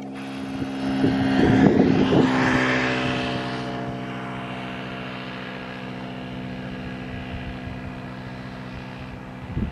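Boeing 747-400F's four jet engines on final approach: a steady, many-toned hum with a rushing noise that swells about two seconds in and then eases off. Wind buffets the microphone in gusts early on and again near the end.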